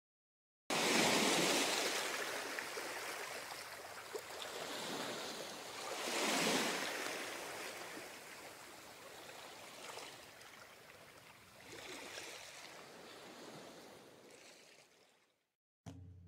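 Surf washing onto a beach: a steady hiss of breaking waves that starts abruptly just under a second in, swells and ebbs in slow surges, loudest about six seconds in, and fades away near the end.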